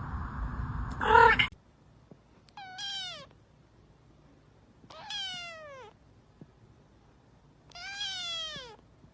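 A cat meowing three times, each meow a drawn-out call falling in pitch, about two and a half seconds apart. Before that, a loud noisy sound in the first second and a half cuts off.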